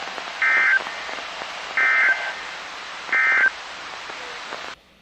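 NOAA Weather Radio sending the three short EAS/SAME end-of-message data bursts, which mark the close of the weekly test broadcast. The identical data squawks come about 1.3 s apart over steady radio hiss, which cuts off near the end.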